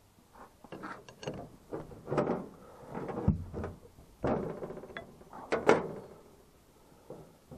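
Ratcheting ring spanner clicking and scraping in short bursts as a threaded fitting is turned on a hydraulic lift control valve block, with a few sharper metal knocks.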